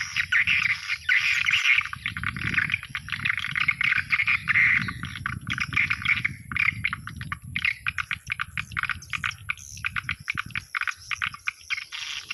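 Recorded swiftlet calls played as a lure through the speakers of a swiftlet house: dense, continuous twittering that turns into rapid, stuttering chirps about halfway through, over a low rumble. The track is the owner's own swiftlet sound program, in its third revision.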